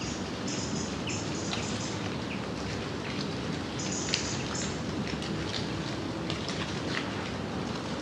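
Gentle steady rain, with single drops ticking close by and one sharper drop about four seconds in. A small bird gives short high calls about half a second in and again around four seconds in.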